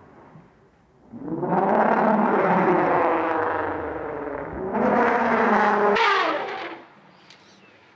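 African elephants trumpeting at a pack of wild dogs while charging: two long, loud, brassy calls, the first about a second in and the second just before the end, with a short echo after it.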